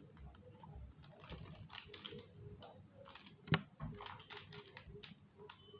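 Plastic Pyraminx puzzle being twisted rapidly by hand, its layers and tips turning with a steady patter of small clicks, with one sharper, louder click about three and a half seconds in.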